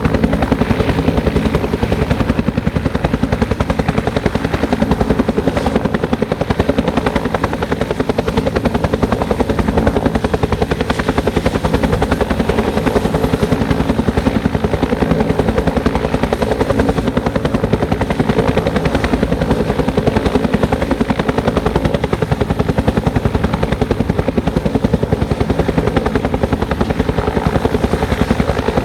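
Bell 205 helicopter's two-blade main rotor beating in a steady, rapid chop over the engine's hum, even in loudness.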